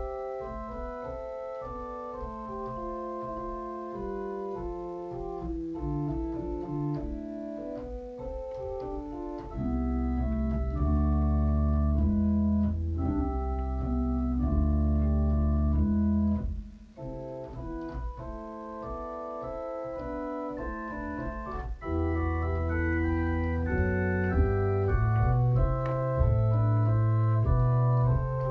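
Organ music: slow sustained chords, with a deep bass line coming in about a third of the way through, dropping out briefly near the middle, then returning and rising toward the end.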